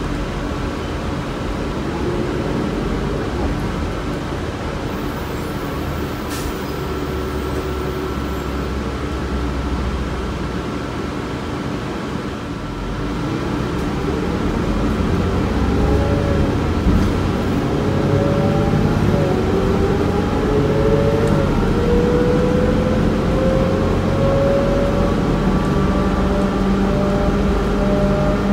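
Inside a 2006 New Flyer C40LFR transit bus powered by a Cummins Westport ISL-G natural-gas engine, the engine and drivetrain run steadily under road noise. The sound eases briefly about halfway through, then grows louder as the bus picks up speed, with a whine that climbs in pitch through the second half.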